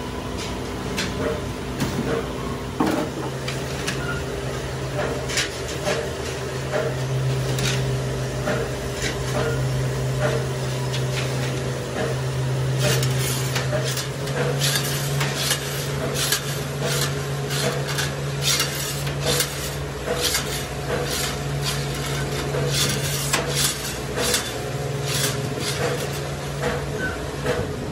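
Steel chaff cutter blades clinking and clattering against one another and the steel rack as they are handled and stacked on its shelves. The clinks come thick and fast through the second half, over a steady low hum.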